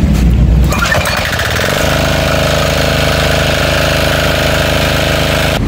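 Single-cylinder 170F diesel engine of a pressure washer being pull-started: it catches about a second in, rises, and settles into a steady, even running rhythm. The sound cuts off suddenly near the end.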